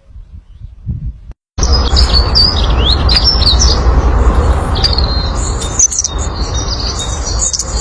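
A songbird singing a rapid run of high chirps and quick sweeping whistles, starting abruptly about a second and a half in, over a loud, steady low rumbling noise.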